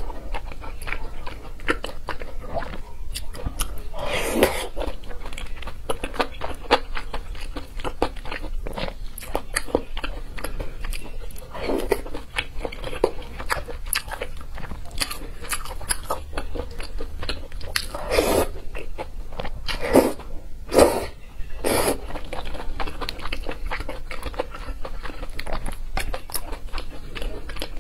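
Close-miked eating of a saucy noodle dish: steady wet chewing and smacking, with several louder slurps of noodles, most of them bunched between about 18 and 22 seconds in.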